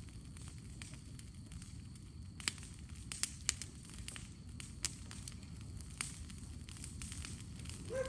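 Burn pile fire burning, with a steady low rumble under scattered sharp pops and crackles.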